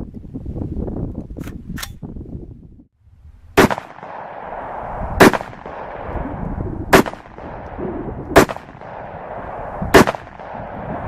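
Five single rifle shots from an AR-15, fired about one and a half seconds apart, each followed by a short echo. Before them come wind and rustling on the microphone with a few light clicks, then a brief gap.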